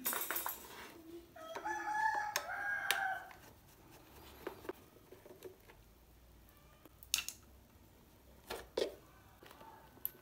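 A rooster crowing once, a pitched call of about two seconds starting a little over a second in. Later come a few sharp clicks from the fan's motor housing being handled.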